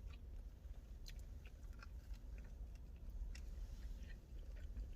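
A person chewing pizza close to the microphone, with scattered soft, wet mouth clicks.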